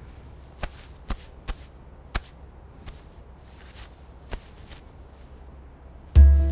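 A few slow, irregular footsteps on a hard floor over a quiet room background. Near the end, background film music comes in with a loud deep note.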